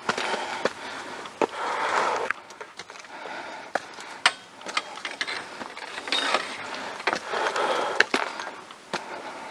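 Walking sounds from a hiker on a bush track: scuffing, swishing steps and rustling, broken by several sharp clicks or knocks.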